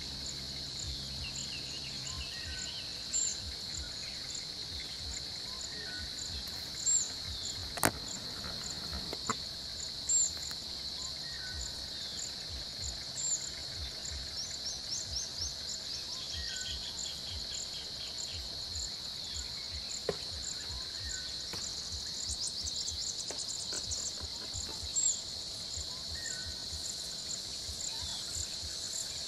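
Steady high-pitched drone of insects with a rapid, repeating chirp above it, and scattered bird calls over the top. There is a single sharp click about eight seconds in.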